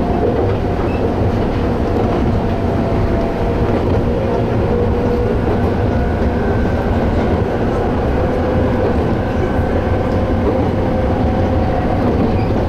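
An electric train running steadily along the line, heard from on board: a constant rumble of wheels on rail with a few thin, wavering whining tones over it.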